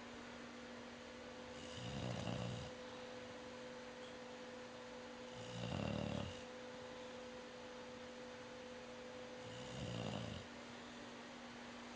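A pet snoring in sleep: three snores about four seconds apart, each about a second long, the middle one loudest.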